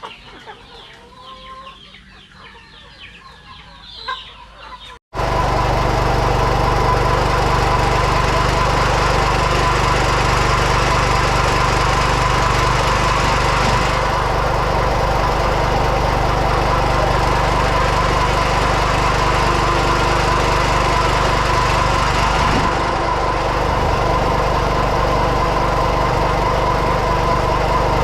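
Chickens clucking softly, then, after an abrupt cut about five seconds in, a loud small engine running steadily.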